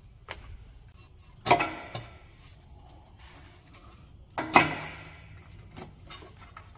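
Two sharp metal clanks about three seconds apart, each ringing briefly, from metal exhaust parts being handled at the exhaust pipe flange under a car.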